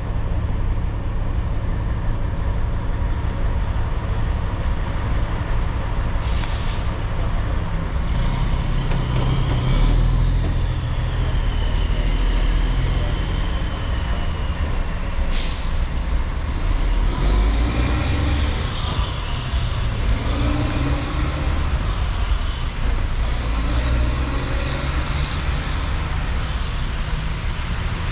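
City driving: a steady low rumble of engine and road noise. Two short hissing bursts come about nine seconds apart, and a wavering high-pitched squeal rises and falls through the middle and later part.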